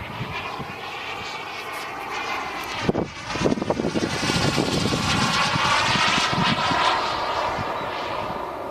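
Turbine engine of a Turbinator radio-controlled sport jet, growing louder to a peak about two-thirds of the way through and then easing off, as the model passes. A burst of low rumbling comes about three seconds in.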